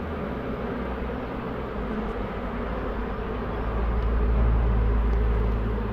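Honey bee swarm buzzing close by as the bees run into a box and fan toward it. A low rumble swells about four seconds in and eases off near the end.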